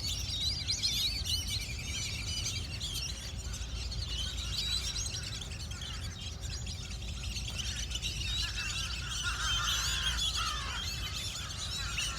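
A flock of birds calling constantly, many high chirping calls overlapping, with a few lower, falling calls about ten seconds in, over a low steady rumble.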